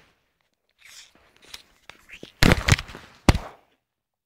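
Camera being handled: rustling and knocks, with one sharp click near the end, then the sound cuts out to dead silence.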